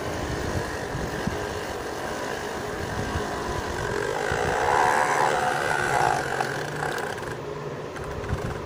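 Small DC motor of a homemade mini water pump running steadily, its propeller churning water out through the pipe; a little louder about halfway through.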